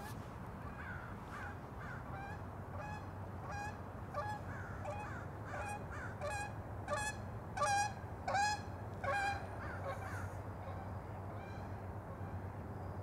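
Waterfowl honking: a run of short, nasal calls, about two a second, that grows louder around the middle and then fades away.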